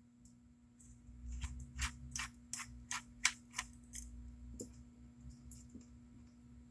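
A small T6 Torx screwdriver working a screw out of the plastic housing of a Braun Series 5 shaver. It makes a run of light, even clicks about three times a second that thin out to a few scattered ones after about four seconds.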